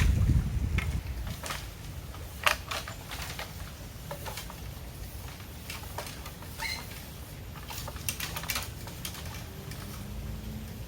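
Irregular light clicks and knocks of a long bamboo pole being handled and knocked about while prodding something in a river, with a louder low rumble in the first second or so.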